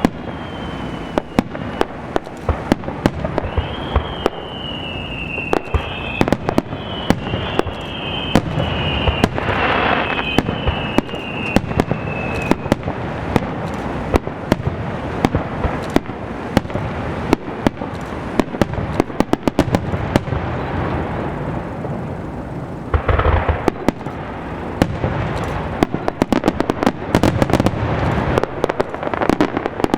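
Aerial fireworks bursting in a rapid, continuous run of bangs and crackles, with a heavier boom about 23 seconds in. A high whistle sounds over the first dozen seconds.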